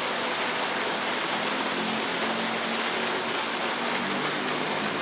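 Heavy rain falling steadily, an even dense hiss, with a faint low hum underneath that grows a little near the end.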